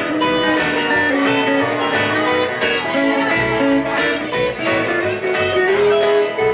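Small live band playing an instrumental passage with no singing: electric guitar and acoustic guitar over a plucked upright double bass, a moving melody over a steady walking bass pulse.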